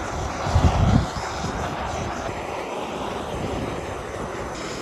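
Handheld propane torch burning with a steady rushing hiss as its flame scorches the surface of carved pine, burning off the wood fuzz. A louder low rumble comes about a second in.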